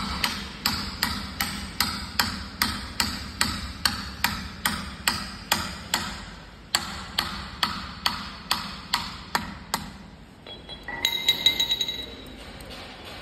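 Hammer blows on a steel drift, driving a bearing into the bore of a flanged shaft hub: sharp metal-on-metal knocks, each with a short ring, at about two or three a second for around ten seconds. Near the end comes a brief metallic ringing jingle.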